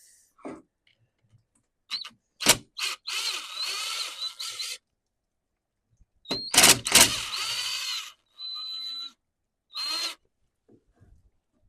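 Power drill backing out the handle bolts of a McCulloch 3516 chainsaw: two runs of the motor of about two seconds each with a few sharp clicks, then two short spurts near the end.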